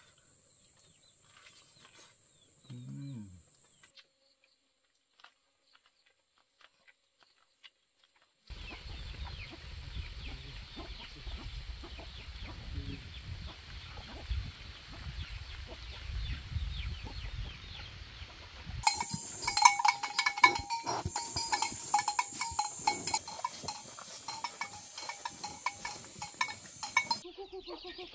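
Farm animals: cattle moving about, then a louder stretch of rapid clanking with a ringing tone, with chickens clucking.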